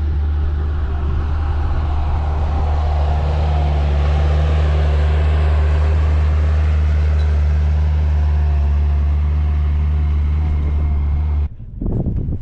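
A vehicle engine running at a steady speed: a deep, even drone that cuts off suddenly near the end.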